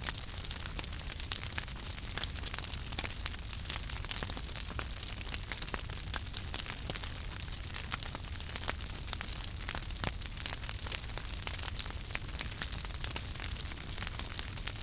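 Wood fire crackling steadily, with many small irregular pops and snaps over a soft hiss and a low rumble of flames.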